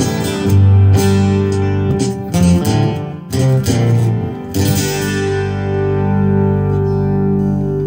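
Solo acoustic guitar with no singing: a run of notes for the first few seconds, then a closing chord about five seconds in that rings on and slowly fades.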